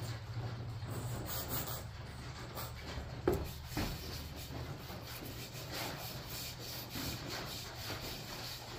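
A bare hand rubbing butcher's block oil into a wooden axe handle and over the axe head: soft, continuous back-and-forth rubbing strokes, with a light knock a little over three seconds in.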